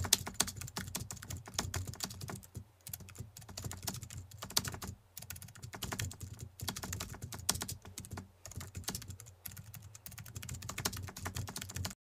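Keyboard typing: quick runs of key clicks broken by short pauses, stopping abruptly near the end.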